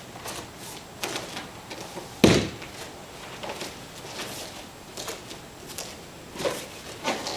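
A body hitting a foam exercise mat in an aikido fall: one loud thud about two seconds in, with lighter knocks and thumps of bare feet and bodies on the mat around it.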